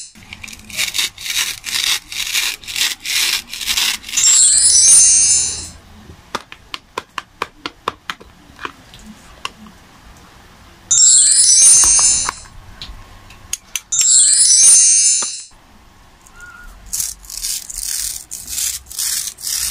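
A plastic toy knife sawing and scraping through a wax crayon on a plastic cutting board, in runs of short rasping strokes. The same short chiming jingle sound effect cuts in three times. Near the end comes a denser run of rasping as a two-piece plastic toy banana is handled.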